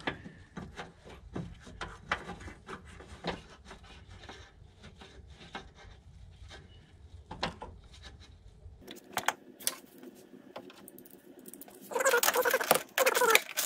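Light clicks and knocks of metal parts being handled while an AC accumulator is fitted into its bracket. About twelve seconds in, a louder rapid clicking of a ratchet wrench turning the bracket bolt.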